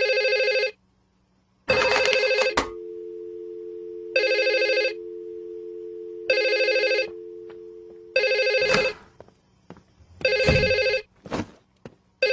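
Telephone ringing: short rings of under a second, repeating about every two seconds. A steady two-note tone sounds under the middle rings, and a few clicks come near the end.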